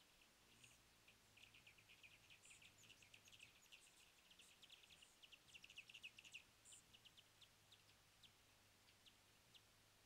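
Faint, rapid high chip notes from hummingbirds at a feeder: a dense run of short chips through most of the stretch, loudest a little past the middle, thinning to scattered single chips near the end.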